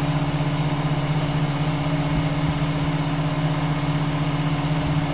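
Truck-mounted crane's diesel engine running steadily, a constant low drone that holds one pitch throughout.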